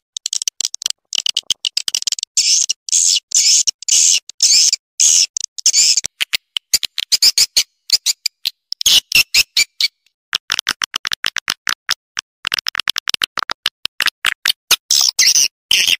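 Swiftlet calling sound: rapid trains of high chirps and clicks, growing faster and denser about halfway through. This is the kind of call recording played to lure swiftlets into a nesting house.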